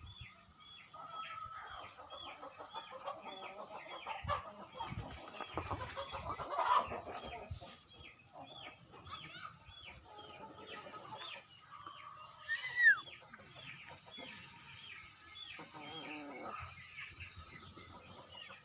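Chickens clucking softly, over a long run of small, high chirps repeated a few times a second, with one louder call falling in pitch about two thirds of the way through.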